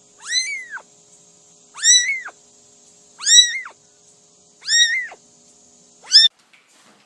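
A cat meowing five times, evenly spaced, each high call rising and then falling in pitch; the last call is cut short.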